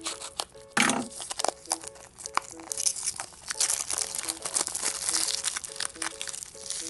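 Clear plastic wrapping crinkling and tearing as a Squinkies Do Drops cupcake-shaped toy container is unwrapped by hand, loudest about a second in, over light background music with a repeating melody.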